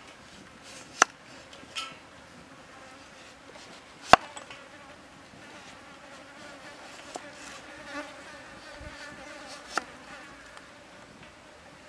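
A kitchen knife slicing a carrot lengthwise on a wooden stump chopping block, with three sharp knocks a few seconds apart as the blade meets the wood. A fly buzzes close by through the second half.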